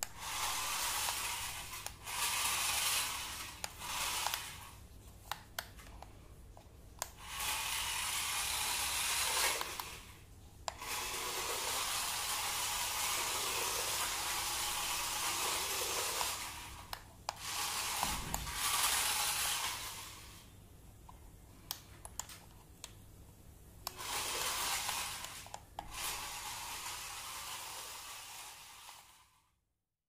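Toy remote-control car's small electric motor and gears whirring as it drives across a tile floor, running in spurts of a few seconds with short clicks in the pauses between runs.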